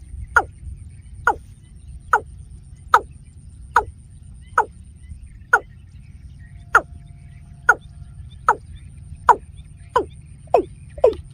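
Watercock calling: a steady series of short notes, each dropping in pitch, about one a second, coming faster near the end.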